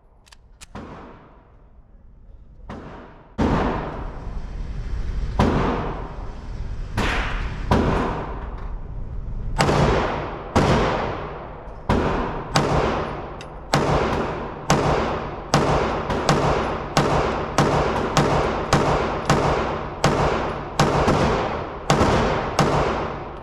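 Gunshots echoing in an indoor firing range: a few single shots a second or two apart, then a steady string of shots about one and a half a second, each ringing off the walls.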